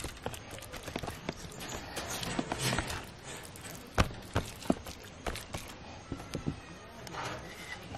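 Hands kneading and rubbing a paste into raw meat in a plastic tub, with irregular knocks and clicks of fingers and tub; the sharpest knock comes about four seconds in.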